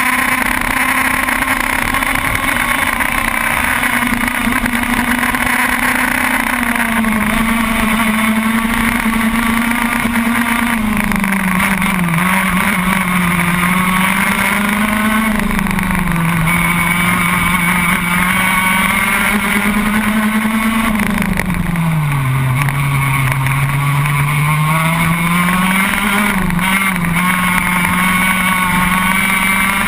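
Racing kart engine running at high revs, heard close up from the kart itself. Its pitch falls and rises again several times as the kart slows into corners and accelerates out, with the deepest drop about two thirds of the way through.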